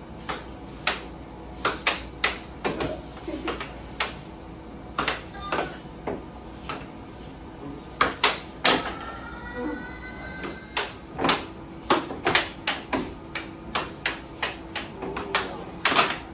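Air hockey being played: plastic mallets hitting the puck and the puck cracking off the table's rails, an irregular run of sharp clacks, some much louder than others. A steady hum runs underneath.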